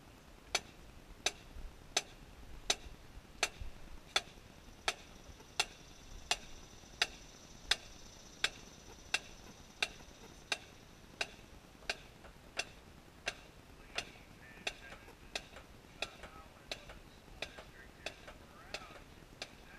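Metronome clicking at a steady tempo of about 85 beats a minute, keeping time for a marching band rehearsal.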